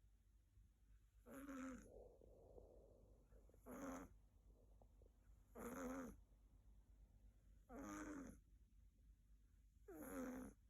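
Siberian kitten snoring in its sleep: five faint, short snores with a pitched, rattly tone, evenly spaced about two seconds apart.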